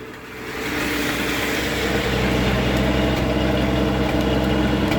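1974 Ford F-250's 4.9-litre straight-six running on high idle just after a cold start, rich on the electric choke. It grows louder over the first second, then holds steady.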